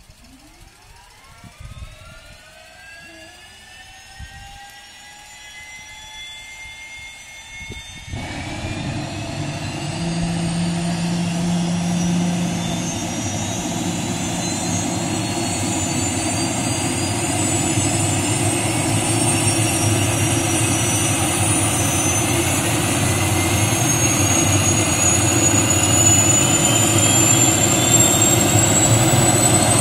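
MD 500E helicopter's Allison 250 turboshaft engine starting up: a whine climbs steadily in pitch as the turbine spins up, and about eight seconds in a loud rushing noise suddenly joins it as the engine lights off. The engine and slowly turning rotor grow steadily louder as they come up to speed.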